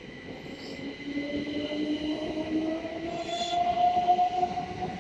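Southeastern Class 375 Electrostar electric multiple unit accelerating away from the platform, its traction motors giving a steadily rising whine over the rumble of the wheels on the rails.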